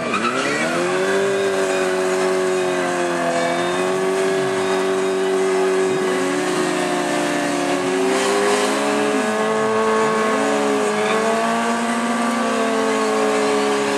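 Sport motorcycles doing a burnout, engines held at high revs while the rear tyres spin on the pavement. The engine pitch stays fairly steady, with small dips and rises as the throttles shift.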